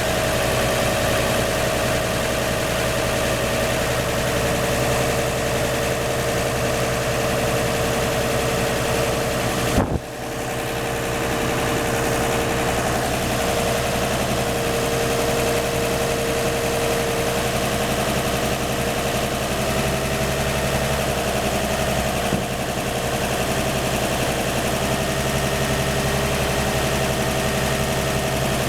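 1954 Chevrolet 235 inline-six idling steadily through Fenton cast iron headers, the exhaust leak at the front header's donut gasket now sealed. A brief click and dip in level come about ten seconds in.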